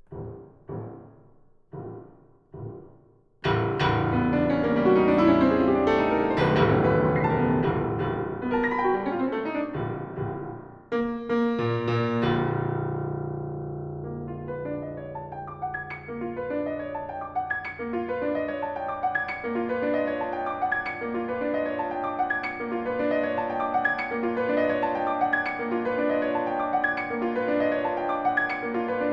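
Piano playing contemporary classical music. It opens with a few short detached chords, then about three seconds in a sudden loud, dense mass of ringing notes. Another sharp chord comes near the middle and dies away, and after that a steady, evenly repeated figure of notes.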